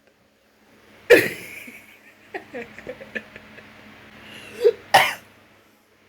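A person's sneezes: one sharp, explosive sneeze about a second in, then a short drawn-in build-up and a second sneeze near the end, with small mouth clicks and breaths between them.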